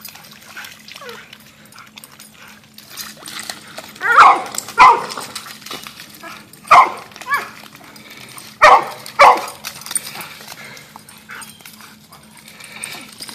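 Dog play barks during rough wrestling: six sharp barks in three pairs, from about four seconds in to about nine and a half seconds in.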